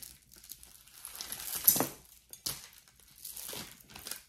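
Plastic bag crinkling and metal chains and beads clinking as a pile of costume jewelry is handled and untangled, with a sharp clink a little under two seconds in.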